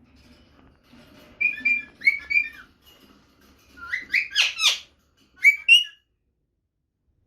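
Rose-ringed parakeet (Indian ringneck) whistling calls, the female's mating call that draws a male: a few short notes about a second and a half in, a cluster of falling calls around four seconds, then two short notes.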